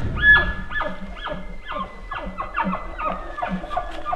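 Elk chuckle: a rapid, steady series of short grunting notes, each sliding down in pitch, with a thin high whistle held under them for about the first three seconds.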